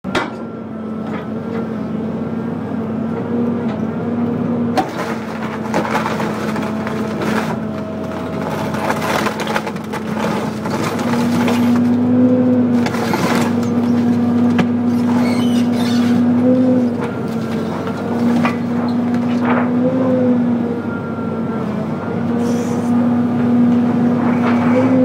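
2003 John Deere 230 LC excavator's diesel engine running steadily under hydraulic load, heard from the operator's cab, its pitch lifting briefly several times. Scattered sharp cracks and crunches come from the motorhome's roof and walls as the bucket tears into the body.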